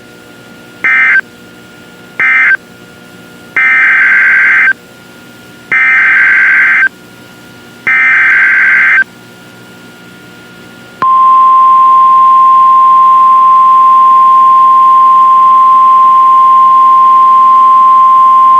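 Emergency Alert System SAME data bursts from a NOAA Weather Radio broadcast: two short end-of-message bursts, then three longer header bursts about two seconds apart announcing the next warning. About eleven seconds in, the steady single-pitch 1050 Hz weather radio warning alarm tone begins.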